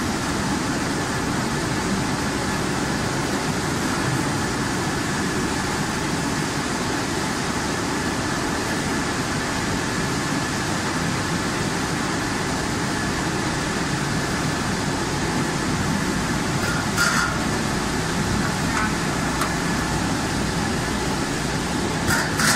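Steady running noise of a French fries production line's machinery, potato conveyor and peeling machine, with a faint high steady whine. There are a few brief knocks about two thirds of the way in and again near the end.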